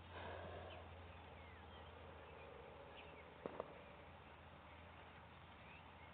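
Near silence: faint outdoor ambience with a steady low hum and a few faint bird chirps, broken by two quick knocks in close succession about three and a half seconds in.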